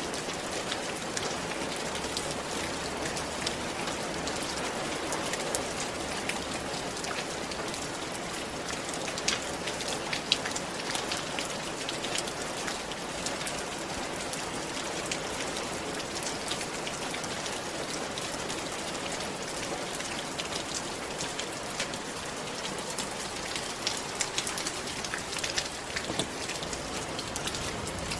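Steady rain falling on a roof: an even hiss filled with many separate drop ticks, a few of them louder around ten seconds in and again near the end.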